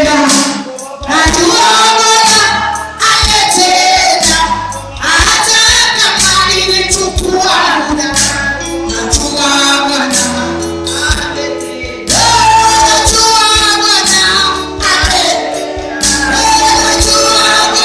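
Live gospel worship music: a woman's voice leads the singing through a microphone, the congregation sings along, and a tambourine and a bass line play under it.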